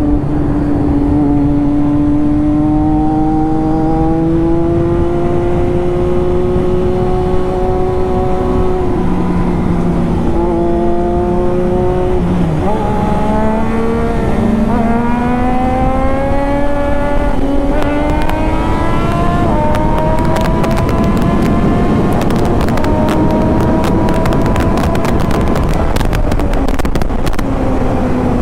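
Triumph Daytona 675's inline-three engine running hard while riding, its pitch climbing and dropping with several gear changes, over heavy wind noise on the microphone.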